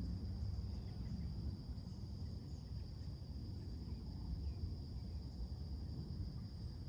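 Steady high-pitched insect chorus of crickets or katydids, with a few faint, scattered bird chirps, over a constant low rumble of outdoor background noise.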